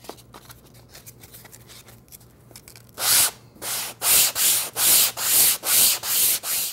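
Hand sanding with self-adhesive sandpaper on a foam block, rubbed back and forth along the curved face of a wooden cove molding. After a few faint handling rustles, about eight quick strokes start about three seconds in, two to three a second.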